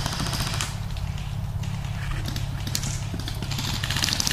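Airsoft guns firing on full auto: a rapid clatter of shots in bursts, one at the start, two short ones in the middle and a longer one near the end, over a steady low rumble.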